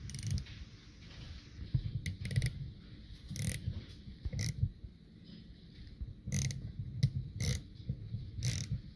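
Thread tap cutting a threaded hole in a Model T front wheel hub, worked in short turns: irregular clicks and creaks as the tap bites into the metal.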